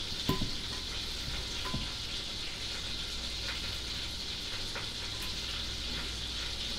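Butter and olive oil sizzling steadily in a hot frying pan. A couple of light knocks come in the first two seconds.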